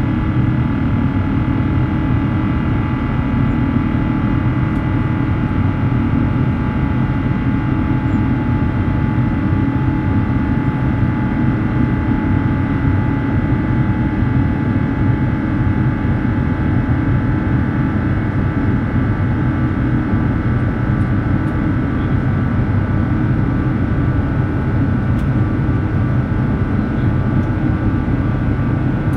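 Cabin noise of an Airbus A350-900 in climb, heard from a window seat beside the wing: its Rolls-Royce Trent XWB turbofan runs steadily under climb thrust, a dense low rumble with several steady whining fan tones over it.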